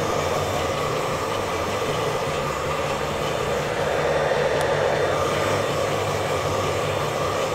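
Handheld hair dryer running steadily, blowing a continuous stream of air.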